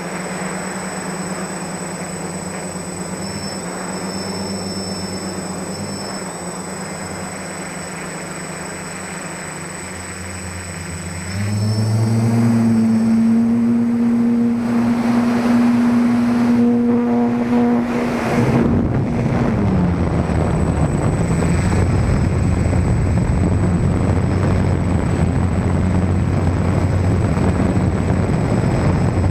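Quadcopter's four SunnySky 980KV brushless motors spinning 10-inch propellers, heard from the onboard camera as a steady hum. About eleven seconds in, the hum jumps louder and higher as the throttle goes up for a climb. It shifts pitch again a few seconds later and stays loud.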